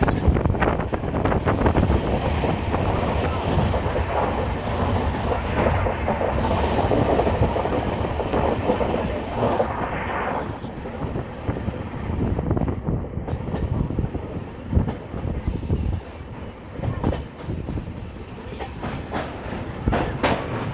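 Passenger train running on the rails, the wheels clattering over the rail joints. Louder for the first half, then quieter with scattered sharp clacks.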